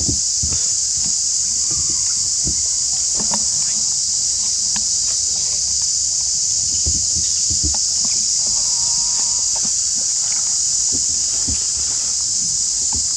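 A steady, high-pitched chorus of insects chirring, with scattered soft rustles and taps in the grass from a small monkey moving about and handling food.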